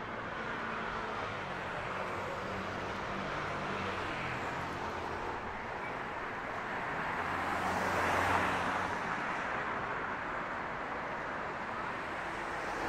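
City street ambience: a steady wash of traffic noise with an engine humming, and a vehicle passing close, loudest about eight seconds in.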